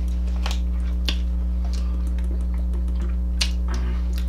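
A steady low electrical hum, with a few short clicks and crinkles as a plastic water bottle is opened and handled.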